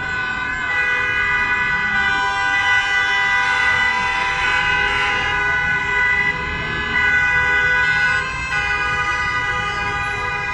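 Many vehicle horns sounding at once in a packed street junction: a dense, loud chord of steady overlapping tones held for seconds on end, over the rumble of traffic.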